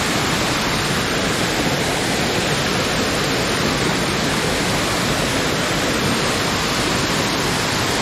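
Waterfall crashing onto rocks close to the microphone: a loud, steady rush of falling water that never lets up.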